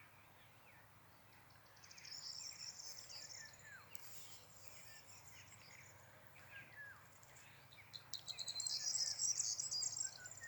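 Insects trilling in a high, buzzy pitch, in one bout about two seconds in and a louder one from about eight seconds in, with short downward-slurred bird chirps scattered throughout.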